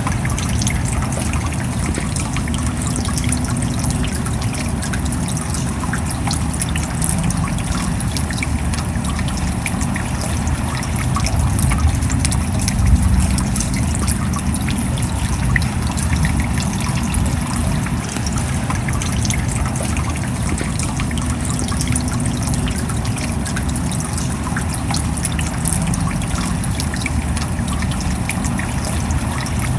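Steady rain falling, with many small drop ticks over a continuous wash of water and trickling runoff.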